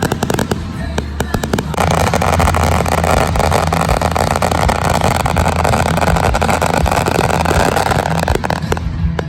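Fireworks going off, with many sharp pops and crackles over a steady low hum. From about two seconds in until near the end, a dense hissing rush joins them.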